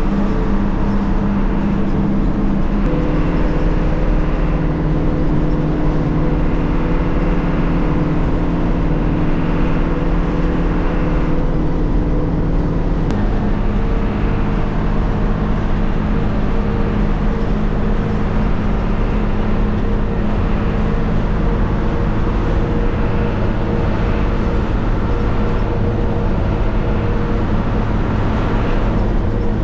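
Bus engine running at speed with road rumble. The engine's steady hum shifts to a new pitch about three seconds in and again about thirteen seconds in.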